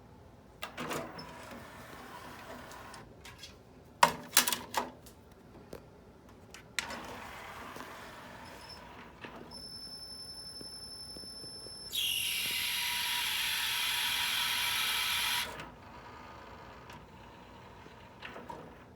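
Sony CDP-CE275 five-disc CD changer's mechanism running: stretches of motor whirring, a quick run of clicks and clunks about four seconds in, and a thin high whine. Then comes a loud, harsh whirring noise lasting about three and a half seconds that cuts off suddenly, the loud noise the player is faulted for.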